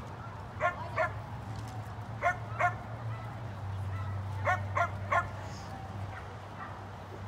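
A dog barking in short quick groups of two or three, seven barks in all, over a low steady hum.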